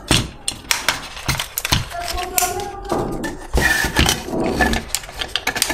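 Plastic parts of a Bumblebee Transformers figure clicking and knocking as hands fold and fit its panels together, a run of irregular taps and clunks.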